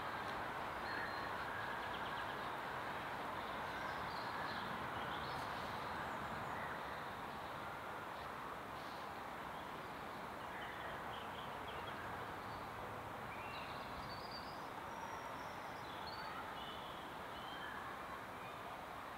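Birds chirping and calling, many short high notes scattered throughout, over a steady background hiss of outdoor ambience.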